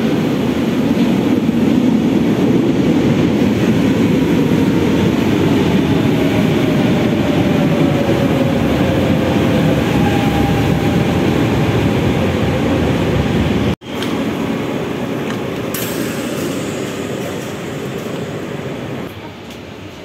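RER A double-deck commuter train pulling into an underground station: a loud, steady rumble of wheels and running gear, with a faint whine falling in pitch. The sound breaks off for an instant about two-thirds of the way through, then the rumble goes on and grows quieter near the end.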